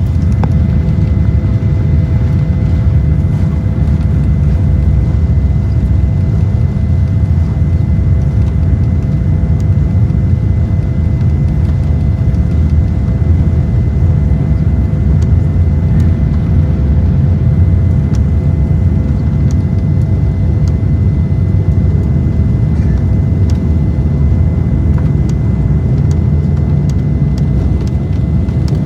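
Airplane during takeoff: a loud, steady rumble of engine and rolling noise with a few steady whining tones above it.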